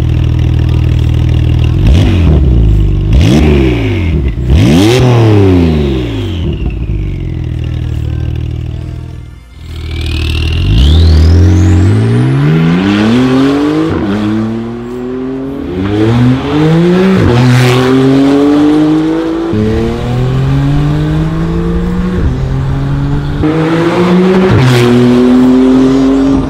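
Porsche 991.2 Carrera S's twin-turbo flat-six through a de-catted Armytrix valvetronic exhaust with the valves open: idling, then three quick revs, then a hard pull away through several upshifts, the pitch climbing and dropping back at each shift.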